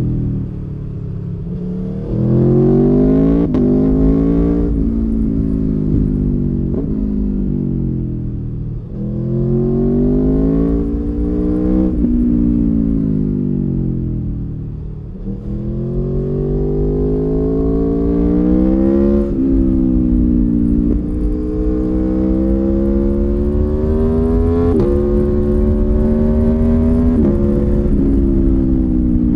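Aprilia Tuono V4 1100 Factory's V4 engine on its stock exhaust, heard from the rider's seat, pulling hard up through the gears several times. Each quickshifter upshift makes the pitch drop suddenly. Between pulls the rider rolls off and the revs sink slowly.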